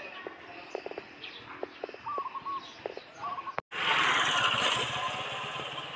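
Open-air ambience with a few short bird chirps and scattered light clicks. After a sudden cut about three and a half seconds in, it gives way to a louder, steady rushing noise.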